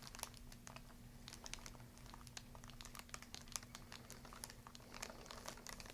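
Near silence: quiet room tone with a steady low hum and faint, scattered light ticks and rustles.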